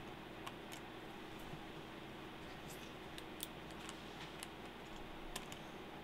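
Faint, scattered small clicks of a small Phillips screwdriver and tiny screws being worked at a laptop's hard-drive tray, over a steady low background hum.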